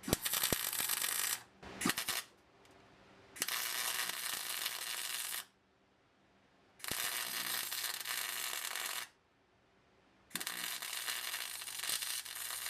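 Welder laying a series of plug welds in the car's sheet-metal torque box to mimic the factory spot welds. It makes five crackling bursts with short pauses between them: four last about two seconds each, and one brief burst comes about two seconds in.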